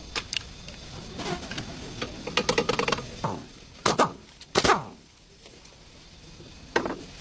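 Clicks, rattles and sharp knocks of hand work on metal brake parts and tools, with the loudest knocks about four and four and a half seconds in and another near the end.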